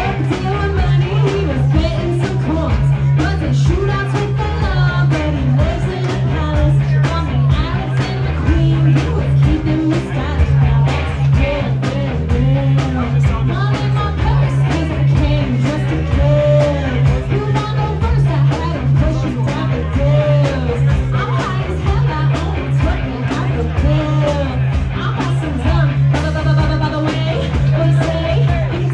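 Live band music: a steady pulsing bass beat with guitar and some singing.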